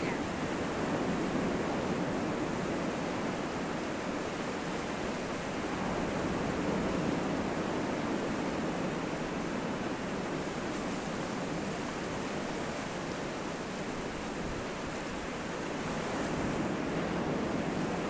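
Sea surf breaking and washing onto a sandy beach: a steady rushing noise that swells and eases gently.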